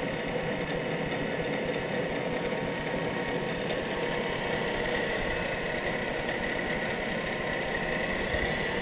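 Gorton 9-J vertical milling machine running steadily, its 3 hp two-speed main motor on the high-speed winding, driven by a VFD at 60 hertz, with a steady high whine over the running noise.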